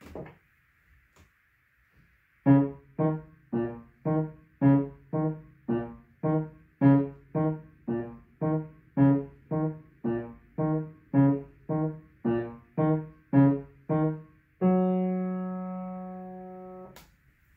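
Grand piano playing a short piece of short, detached, evenly spaced notes, about two a second, ending on a held chord that rings and fades away.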